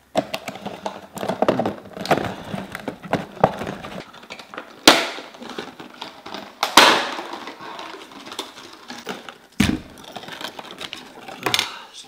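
Stiff clear plastic clamshell packaging being wrenched and pried open by hand: a run of crackles and crinkles broken by several loud, sharp cracks and one dull knock.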